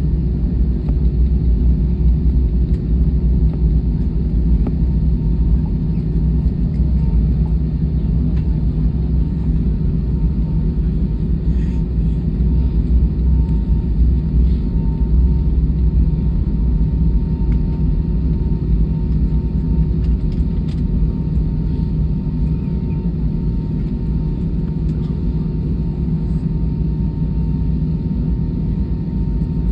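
Steady low rumble inside the cabin of an Airbus A320-214 taxiing after landing, its CFM56 engines at idle and its wheels rolling, with a faint steady whine throughout.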